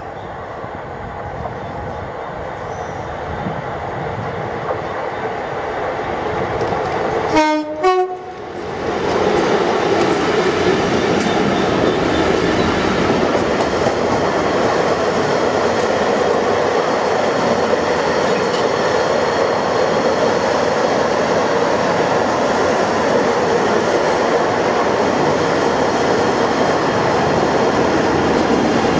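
Class 66 diesel locomotive on an intermodal container freight train approaching, sounding its horn in two short blasts about seven seconds in, the second a little higher than the first. It then passes and the loaded container wagons roll by loudly and steadily, with clickety-clack over the rail joints.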